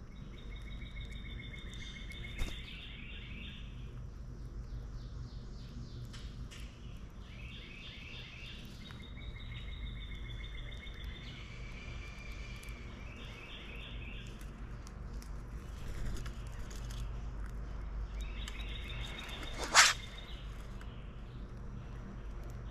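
Songbirds singing rapid trilled phrases, repeated several times, over a steady low background rumble. A single sharp click near the end is the loudest sound, with a smaller one early on.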